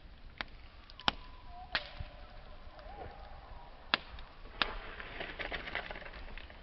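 Wood fire in a fireplace crackling: sharp single pops every second or so over a low steady burn, with a faint thin whistle wavering for a couple of seconds in the first half. Near the end it breaks into a dense run of small crackles.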